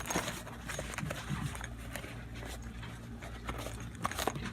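Faint handling sounds: rustling and a few light knocks as a portable car jump starter is taken out of its case, over a low steady hum.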